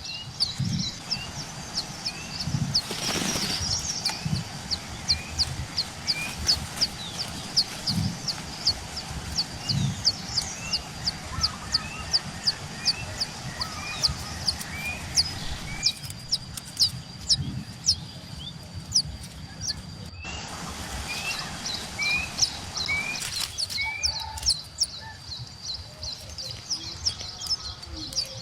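Small birds chirping: an even, rapid series of short, high, thin chirps, about two a second, with a slower, lower note repeating alongside for stretches. Occasional low thumps sit underneath.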